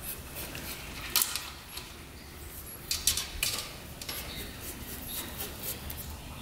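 Light clicks, taps and scrapes of a throttle cable and small metal parts being handled, with a few sharper clicks about a second in and again around three seconds in.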